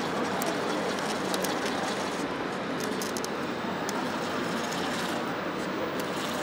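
Steady background hubbub of a busy exhibition hall, with scattered small clicks and crunches.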